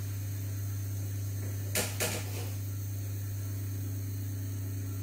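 Two sharp knocks close together about two seconds in, over a steady low hum.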